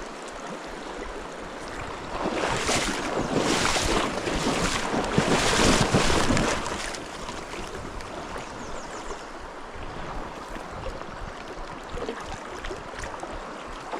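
Steady rush of a mountain stream, with a louder stretch of splashing for a few seconds near the start as someone wades into the water.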